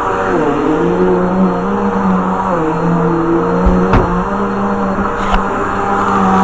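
Vacuum cleaner motor running with a steady hum whose pitch dips and wavers, and a couple of knocks about four seconds in.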